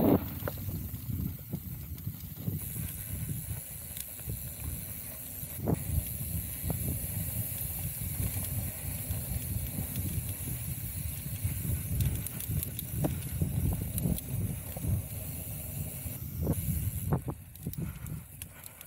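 Full-suspension mountain bike riding a dirt trail: a steady low rumble of tyres over the ground with a hiss over it, broken by scattered knocks and rattles from the bike. The rumble eases near the end.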